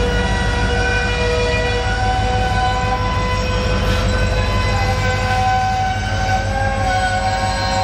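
Heavy rumble of a CN ore train's freight cars rolling past slowly, over which the steel wheels squeal in several high, wavering tones that come and go.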